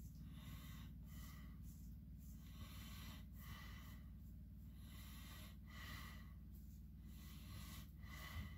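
Faint scratching of a Damascus-steel straight razor cutting lathered stubble in short strokes, about one a second, over a steady low hum.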